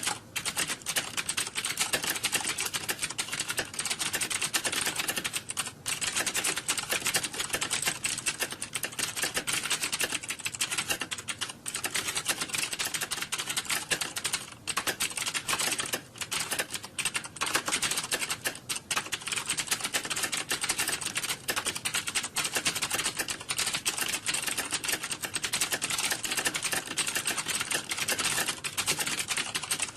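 Fast, continuous typing on a computer keyboard, a dense stream of key clicks with a few brief pauses.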